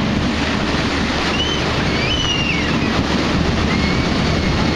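Ocean surf washing and breaking in the shallows around the wader's legs, with wind buffeting the microphone as a steady low rumble.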